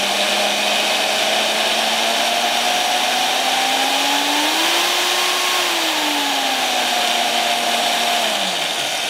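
Bauer portable bandsaw's brushed electric motor, running with no blade fitted, on an aftermarket variable speed controller. Its whine rises in pitch as the speed is turned up to a peak about halfway through, then falls again as it is turned down, winding down near the end. The controller works.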